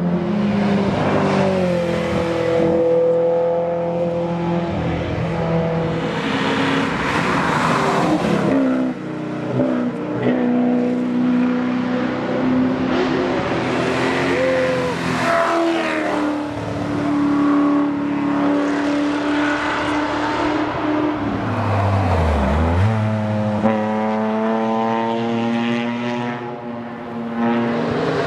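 Classic rally car's engine working hard at high revs on a tarmac stage, its pitch climbing and dropping again and again through gear changes and lifts as it comes by. About 22 seconds in the revs drop sharply and climb straight back.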